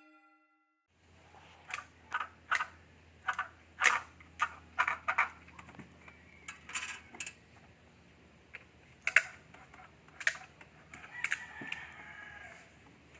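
Irregular sharp clicks and clinks of hand tools and small hard parts being handled while a breaker box is worked on, some of them loud.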